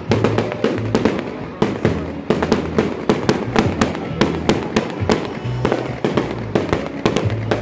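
Fireworks going off in rapid succession: a string of sharp bangs and crackles, several every second, with no pause.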